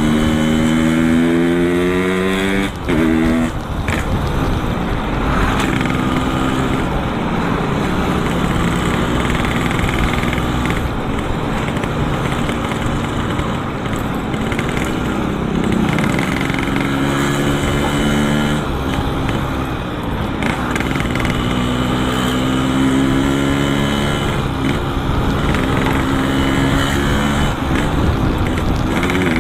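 Yamaha RX-King's single-cylinder two-stroke engine running through a Boban C33 aftermarket exhaust while riding. It rises in pitch under acceleration and drops several times at gear changes, over wind and road noise.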